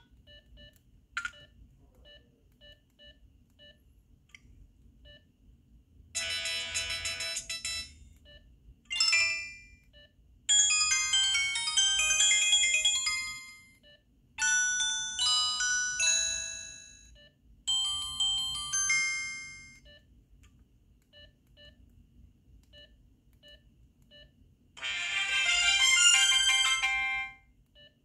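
Samsung SGH-T629 mobile phone's speaker playing a series of short electronic ringtone and alert jingles, about six in turn, each a second or two of chiming notes that fade out, with short pauses between them.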